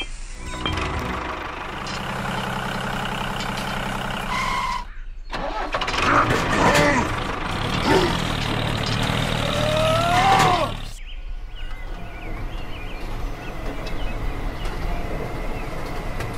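A tractor engine running steadily, then revving louder with rising and falling pitch, and settling back down near the end. The sound cuts out briefly about five seconds in.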